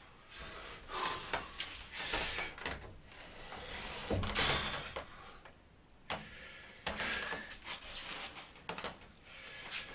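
Heavy timber beams being shifted by hand, with irregular knocks and scraping of wood on wood.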